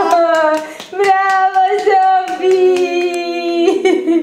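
A toddler singing and calling out in long, held high notes while clapping her hands, the claps thickest in the first second.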